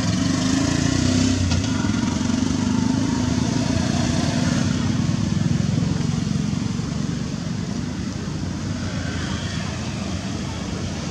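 Steady low rumble of motor traffic with indistinct voices underneath.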